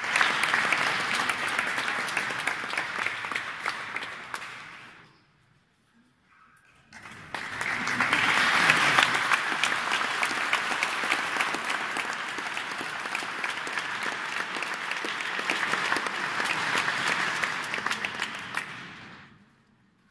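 Audience applauding. The applause dies away about five seconds in, then a second, longer round builds and fades out near the end.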